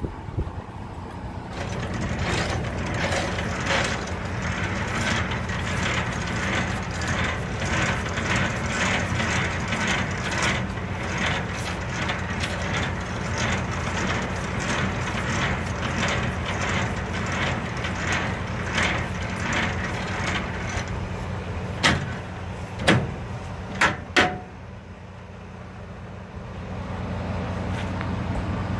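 Semi-trailer landing gear being wound down with its hand crank, a rhythmic grinding of about two strokes a second, followed by three sharp metal clanks near the end. A diesel truck engine idles underneath.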